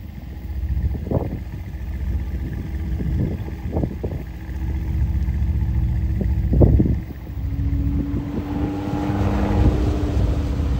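Lotus Exige 410's supercharged V6 engine becomes clearly audible about seven seconds in, holding a steady note as the car comes past on the track. Gusts of wind buffet the microphone throughout, making low rumbles and sharp thumps.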